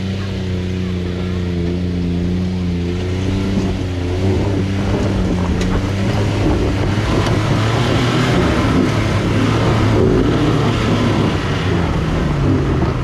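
Modified Jeep JK Wrangler engine working hard under load as it climbs a steep dirt hill, holding steady revs at first and getting louder as it nears. From a few seconds in, the sound turns rougher and noisier as the tyres scrabble and spin on the loose dirt.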